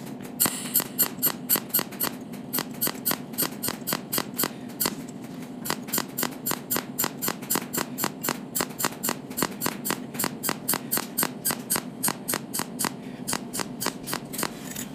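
Cold welding machine's pulsed arc snapping in a steady rhythm of about four sharp clicks a second as filler wire is fed onto a nut, over a steady low hum. The clicks begin about half a second in.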